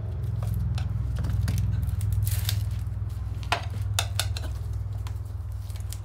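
Metal tire tools clinking and scraping against a motorcycle wheel rim, with a few sharp clicks, while a bead-holding clamp is fitted and the tire bead is worked over the rim by hand. A steady low hum runs underneath.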